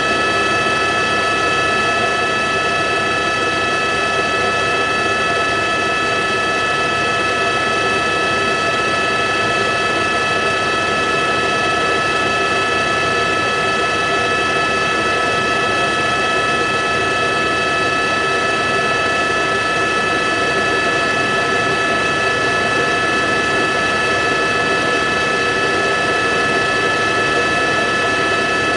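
Aircraft engine noise heard from on board: a constant rush with a steady, unchanging high whine of several tones.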